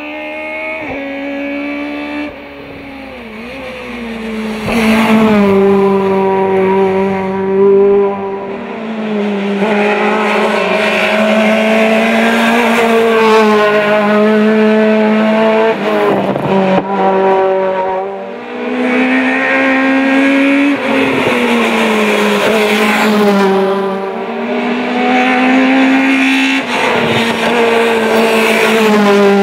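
Peugeot 306 GTI hill-climb race car's engine at high revs, driven hard through the gears. Its pitch climbs and drops again and again as it shifts and lifts for corners.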